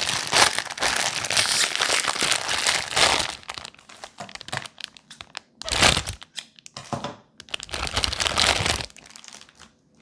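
Clear plastic packaging bag crinkling in the hands as a silicone pop-it fidget toy is handled inside it: a long stretch of crinkling over the first three seconds or so, then two shorter bursts later on.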